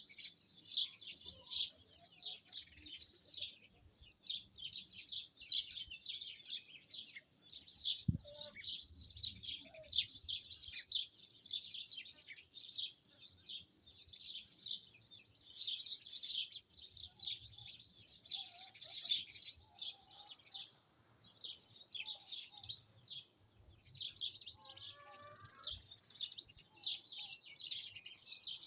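Small songbirds chirping and twittering in rapid, overlapping high-pitched phrases with brief gaps between them.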